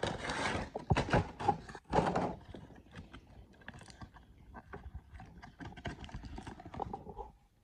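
Cardboard box and plastic packaging being handled as a toy box is opened and its insert slid out: rustling, scraping and clicking, busiest in the first couple of seconds, then lighter crackles.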